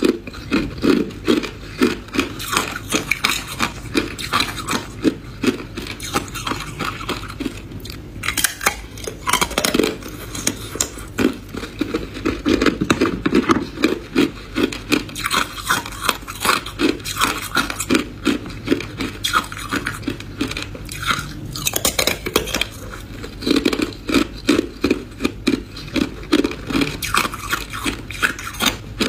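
Hard clear ice being chewed: fast, repeated crunches as the ice breaks between the teeth, with short pauses between runs of bites.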